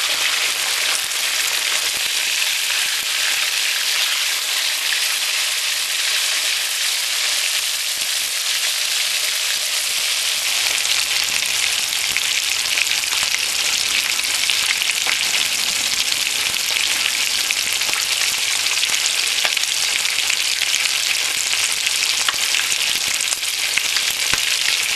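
Hot oil sizzling and crackling steadily around two whole snapper shallow-frying in a pot, the fish now frying on their second side.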